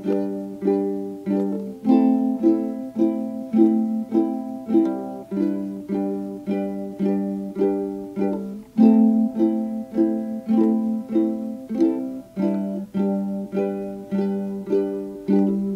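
Background instrumental music on a plucked string instrument: evenly spaced notes, each ringing and fading, close to two a second.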